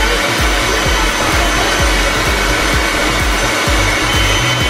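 Leaf blower running steadily, blowing air into a giant balloon to inflate it.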